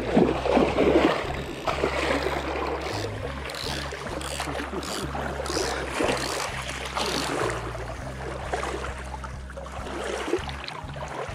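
River water splashing and sloshing close to the microphone as a landing net moves through it. The splashing is loudest in the first couple of seconds, then settles into a steadier slosh.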